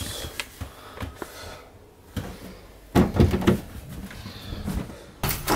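A room door with a metal lever handle being opened and shut: small latch clicks, then a louder knock about three seconds in and another near the end.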